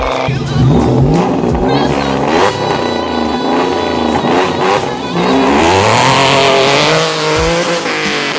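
A straight-piped 2014 Hyundai Genesis Coupe 3.8 V6 revving hard as the car drives past, its engine note climbing and dropping several times. It is loudest a little past the middle.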